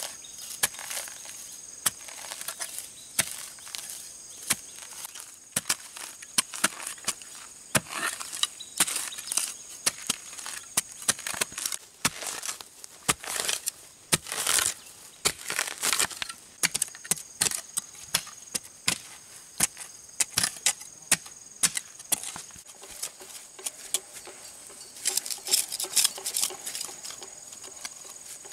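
Metal hand tools chopping and scraping into grassy soil in quick, irregular strikes as a patch of ground is dug up and loosened. A steady high insect buzz runs behind.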